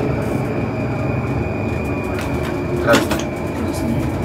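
Moscow metro train heard from inside the driver's cab as it rolls slowly along a station platform before stopping: a steady low rumble with a thin, steady high whine, a faint click about two seconds in and a louder short knock about three seconds in.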